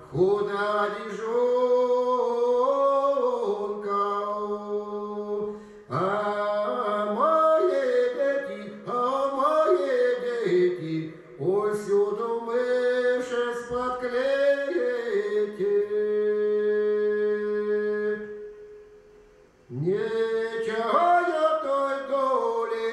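Male voice singing a Russian spiritual folk song in long, ornamented, drawn-out phrases over a steady lower held note. The singing breaks off briefly about three-quarters of the way through, then resumes.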